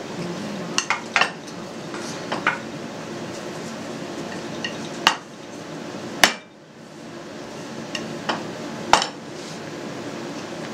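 Wooden rolling pin rolling out dough on a floured board: steady rolling with about seven sharp wooden knocks, the last near nine seconds in as the pin is laid down on the board.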